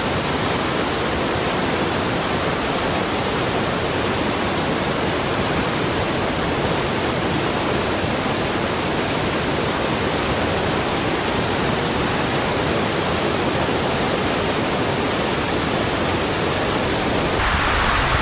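Heavy rain pouring down in a steady, dense hiss without letup. Near the end the sound changes and grows brighter.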